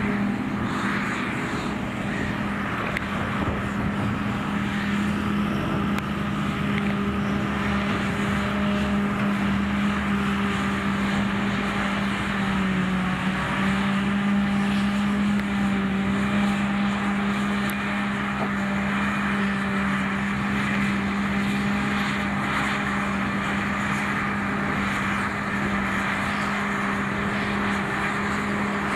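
Claas Jaguar 870 self-propelled forage harvester at work, picking up and chopping grass and blowing it into a trailer: a steady machine drone with one strong held hum that wavers briefly near the middle.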